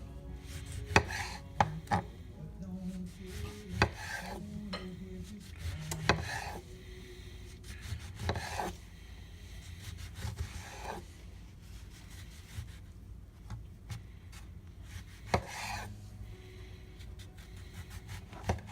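Kitchen knife slicing through oranges on a cutting board: rasping cuts through peel and flesh, with irregular sharp knocks as the blade meets the board.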